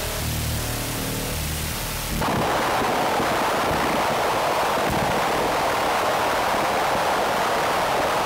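Electronic trip-hop track: a few low synth notes over a hiss, then about two seconds in a dense, steady wash of synthesised noise, with no notes, takes over.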